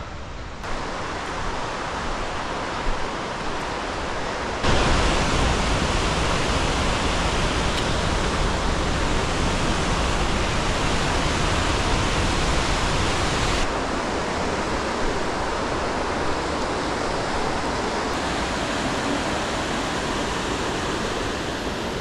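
Steady rush of a mountain river's flowing water. It jumps suddenly louder about five seconds in and drops back about nine seconds later.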